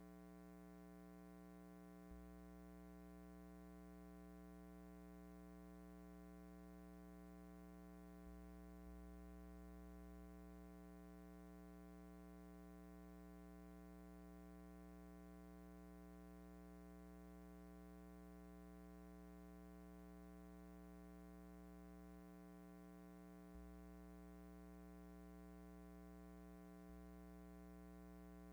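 Near silence with only a faint, steady hum made of many evenly spaced tones; the film has no soundtrack.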